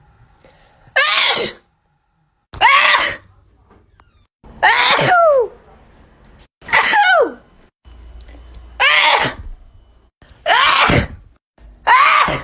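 A person sneezing, one loud sneeze about every two seconds, six or seven in a row. Each is a short burst whose voiced part drops in pitch, with quiet gaps between.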